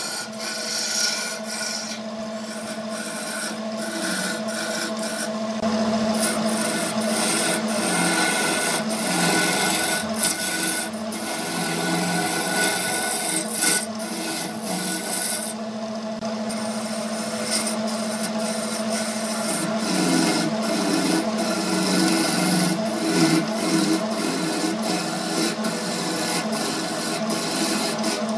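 Hand-held turning tool cutting into a block of wood spinning on a wood lathe: a continuous rasping scrape as shavings peel off. The lathe's motor hums steadily underneath.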